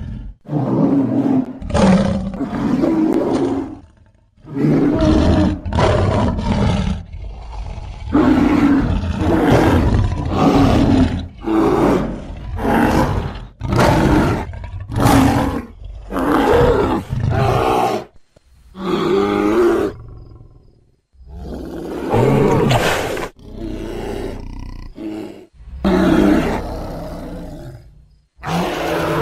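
A rapid string of a dozen or more recorded big-animal roars and growls, each about one to two seconds long with brief breaks between, edited together as cave bear sound effects.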